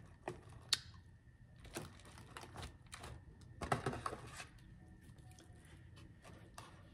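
Soft, scattered eating sounds close to the microphone: brief clicks and mouth smacks, with the busiest stretch around the middle.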